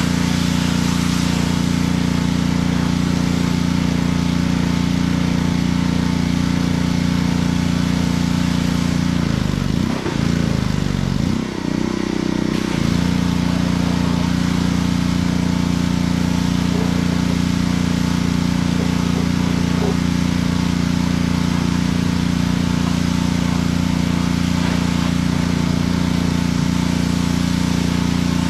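Pressure washer running steadily with an even drone. About ten seconds in, its pitch briefly drops and comes back up.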